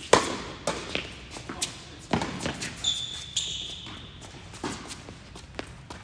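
Tennis balls struck by rackets and bouncing on an indoor hard court during a doubles rally: a run of sharp pops and thuds, the loudest just at the start. A high squeak about three seconds in lasts about a second.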